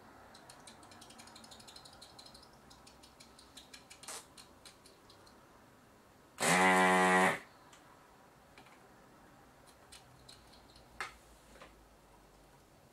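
Electric desoldering gun on an IPM module's pins: faint irregular ticking and crackling, then the vacuum pump buzzes steadily for about a second as it sucks molten solder from a joint.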